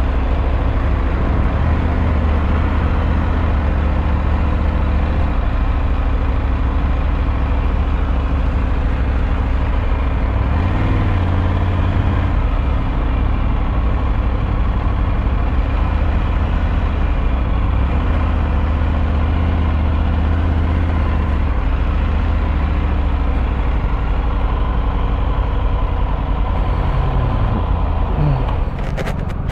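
Engines idling in a stopped traffic queue: a steady low hum that swells briefly about ten seconds in and drops away near the end.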